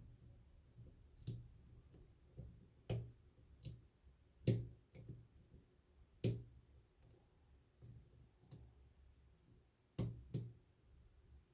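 Lock picking in a ZONE closed-shackle padlock with a six-pin keyway: a run of sharp, irregular metal clicks from the pick and tension tool working the pins, a few of them much louder, including a quick pair near the end.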